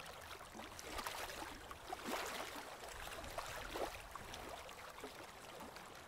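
Faint moving water, with irregular small splashes and drips.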